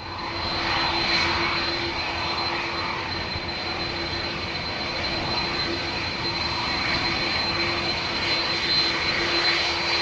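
Airbus A330-300 airliner's jet engines running at close range as it moves along the ground: a steady rushing noise with a sharp high whine over it.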